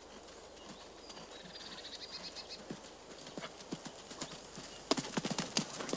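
Horse cantering on a sand arena: hoofbeats that start faint and grow louder, with a run of loud hoof strikes near the end as it nears the jump. A bird twitters faintly about a second in.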